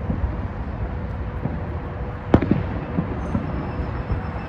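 Fireworks display going off: a continuous low rumble of explosions with scattered bangs, the sharpest about halfway through.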